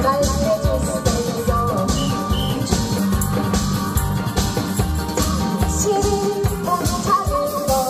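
Upbeat Korean trot song at full volume: a woman singing into a microphone over an amplified backing track with a steady drum beat.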